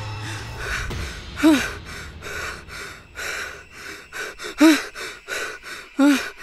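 A man panting hard and fast, out of breath from running, with three loud voiced gasps among the rapid breaths.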